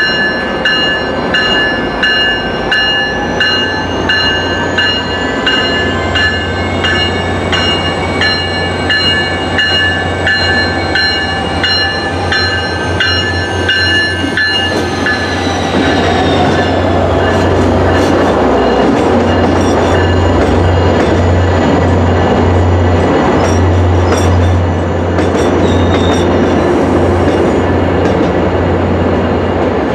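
MBTA F40PH-3C diesel locomotive pulling in with its bell ringing steadily; the bell drops in pitch as the locomotive passes about 14 seconds in. The engine then goes by close and louder, and the bi-level coaches roll past with wheels clicking over rail joints near the end.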